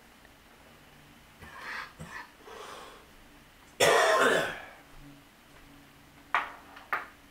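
A person clearing their throat and coughing: soft rasps about a second and a half in, one loud cough a little before halfway, then two short, sharp coughs near the end.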